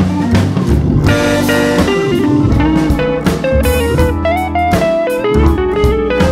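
Background music: a guitar-led instrumental track with drums keeping a steady beat.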